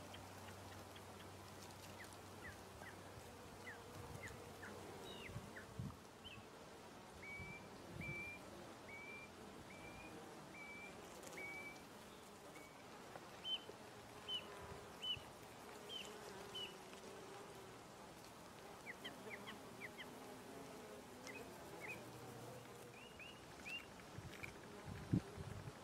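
Faint buzzing of bees foraging on the flowers, a low wavering hum. Runs of short, high chirps sound over it, about two a second in places, and there is one soft thump near the end.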